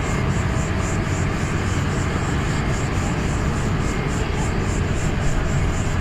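Steady jet aircraft engine noise, an even roar with a high hiss that pulses faintly and regularly.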